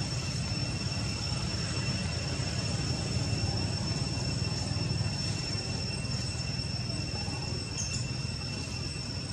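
Steady outdoor background noise: a low rumble with a constant thin high-pitched whine above it, unchanging throughout.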